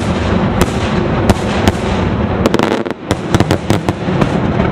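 Aerial firework shells bursting one after another: sharp bangs over a continuous rumble, coming thick and fast in a dense cluster in the second half.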